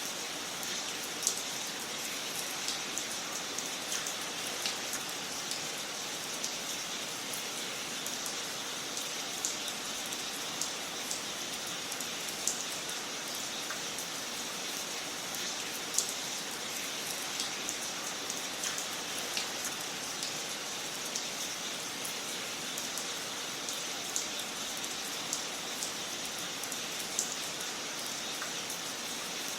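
Wood fire crackling in a fireplace: a steady soft hiss with scattered sharp pops and snaps, a few louder than the rest.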